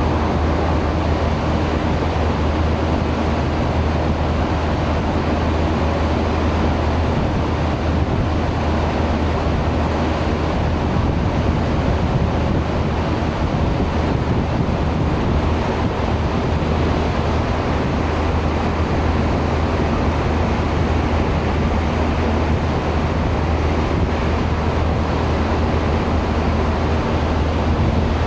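Steady low engine drone of a ship under way, with wind and rushing water over it; the level holds even throughout.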